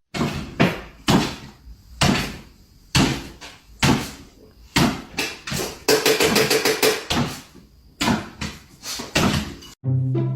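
A series of sharp knocks or bangs, roughly one or two a second at uneven spacing, with a quicker cluster about six to seven seconds in.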